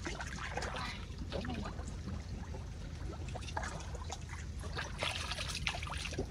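Water trickling and dripping into a canal, with scattered small clicks and rustles.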